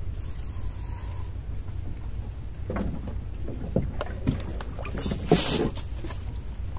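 Scattered knocks and bumps on a wooden fishing boat as the angler moves about while playing a hooked fish, then a short splash about five seconds in as the fish thrashes at the surface near the boat.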